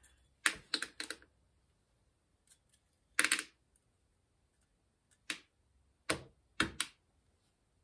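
Small steel ball bearings from a Shimano Front Freewheel System chainring assembly being picked off with tweezers and dropped into a shallow lid: a series of sharp, irregular clicks, some in quick runs of two or three.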